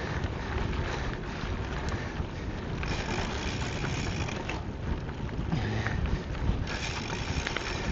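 Wind buffeting the camera's microphone with steady rumble from riding a gravel bike over a dirt trail.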